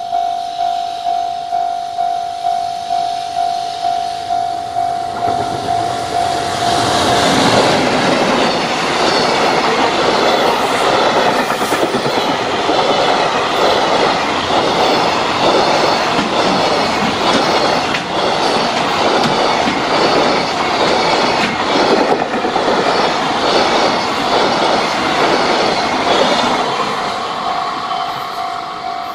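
Level-crossing alarm ringing in even pulses, about two a second, as a container freight train approaches. The long freight train then runs past, its wheels clattering over the rail joints in a steady run of clicks for about twenty seconds. As the last wagons go by, the crossing alarm is heard again near the end.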